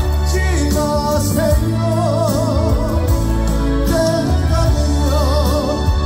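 A male singer sings live with a backing band through a concert PA, holding long notes with wide vibrato over a steady bass.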